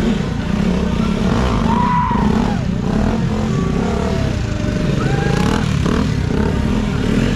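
Stunt motorcycles' engines running as riders hold wheelies, a steady low drone, with a few short higher-pitched cries over it about two and five seconds in.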